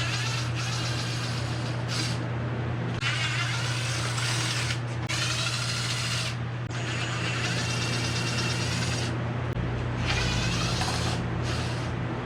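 A handheld power tool driving fasteners, running in about six short bursts of one to two seconds with brief pauses between, over a steady low hum.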